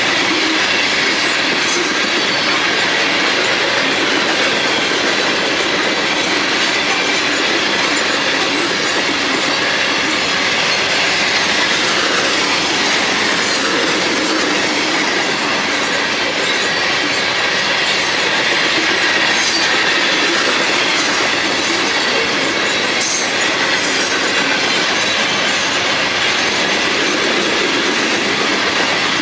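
Loaded open gravel hopper cars of a long freight train rolling past at speed: a loud, steady noise of steel wheels on rail, with several brief sharp high sounds along the way.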